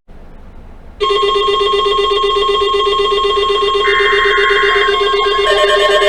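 Loud electronic tones, ringtone-like, starting about a second in: a trilling low tone under a steady higher tone. A harsher, screechy burst lasts about a second near the middle, and a new warbling note joins near the end.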